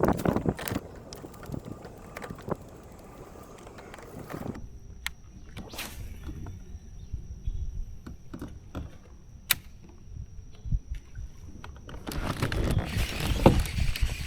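Wind buffeting the microphone, then a quieter stretch of scattered sharp clicks and knocks with a faint steady high whine, before the wind picks up again near the end.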